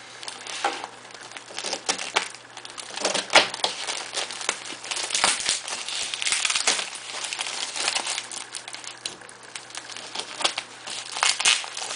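A parcel's wrapping being crinkled and torn open by hand: irregular rustling and crackling, loudest about three seconds in.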